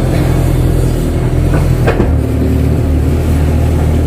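Kato crawler excavator's diesel engine running steadily; its note shifts about two seconds in. Just before the shift there is a short falling squeak.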